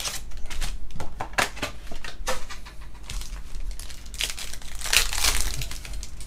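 Trading-card pack wrapper crinkling and tearing open by hand, with cardboard box handling: a run of irregular crinkles and rips, loudest about five seconds in.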